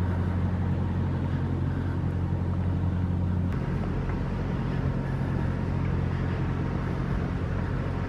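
Steady low outdoor rumble with no distinct events; its character shifts abruptly about three and a half seconds in, where the recording cuts.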